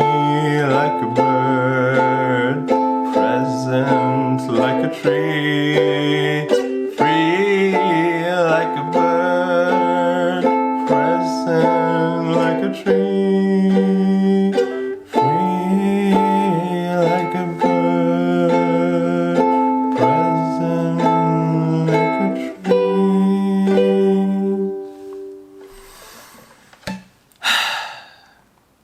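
A wordless sung melody with held, wavering notes over a strummed plucked-string instrument. The music rings out and fades a few seconds before the end, followed by two short noises.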